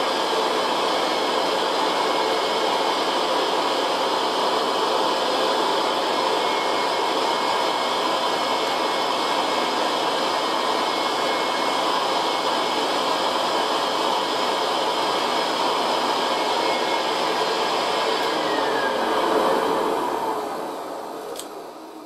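Hoover Convertible 1060 upright vacuum cleaner running steadily on high, drawing air through its hose and wand during a suction test. About 19 seconds in it is switched off, and the motor winds down with a falling pitch and fades out.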